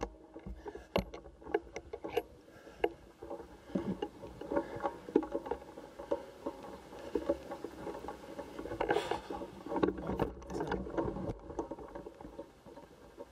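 Hurried footsteps with clothing and gear rustling, and the shoulder-mounted camera rig knocking and rubbing: a busy run of irregular clicks and knocks.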